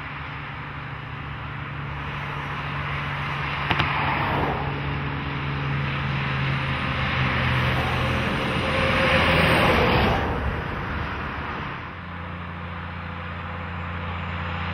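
Heavy diesel trucks and cars going by on a highway: a steady engine drone under the rush of tyres. It swells and drops in pitch as vehicles pass about four and ten seconds in, the second pass the loudest. Near twelve seconds it changes abruptly to another truck's engine drone building as it approaches.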